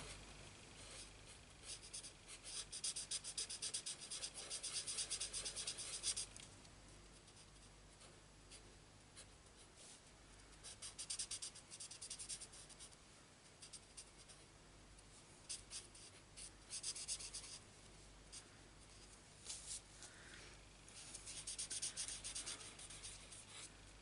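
Marker tip rubbing on cardstock in quick, short colouring strokes: several runs of faint scratchy strokes with pauses between them.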